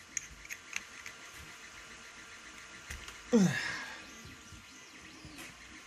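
A few light clicks of a small tool on the carburetor as its high-speed jet is being worked out, then about three seconds in a short vocal sound that falls sharply in pitch, like a sigh.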